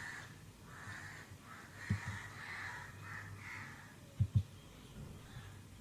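Computer mouse double-clicking: a few soft paired clicks, the loudest pair a little past the middle. Birds call in the background during the first half.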